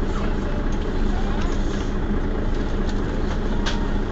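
Mercedes-Benz Citaro facelift city bus running steadily, a low even engine hum with a few light clicks and rattles, the sharpest near the end.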